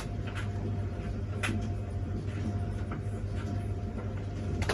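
A steady low hum with two sharp metal clicks, about a second and a half in and near the end, as front brake caliper bolts are fitted with hand tools.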